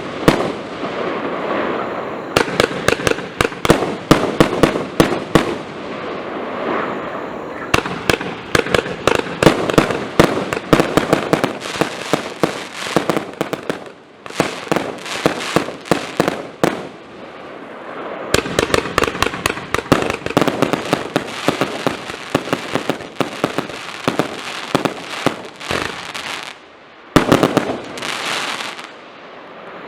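A 120-shot compound firework battery firing: a rapid, dense string of shots and bursting shells over continuous crackling, with a few short lulls.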